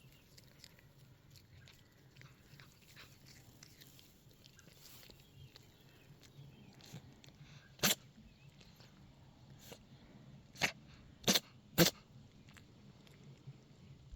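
Himalayan Persian cat sneezing four times, short sharp sneezes: one about eight seconds in, then three in quick succession about two seconds later.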